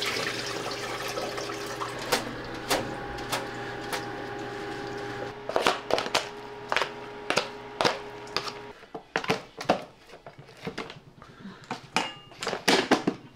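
Kitchen food-prep clatter: a spoon clicking and scraping against a plastic takeout tray and a stainless-steel bowl as raw beef and lettuce are served and mixed. Scattered sharp knocks get busier in the second half, over a steady electrical hum that stops about nine seconds in.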